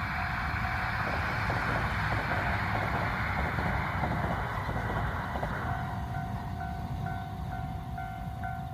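A train running past a Japanese level crossing, its wheels and rails making a dense rumble that fades after about five and a half seconds. The crossing's electronic alarm sounds under it, and as the train's noise fades its steady repeating ding stands out, about two strikes a second.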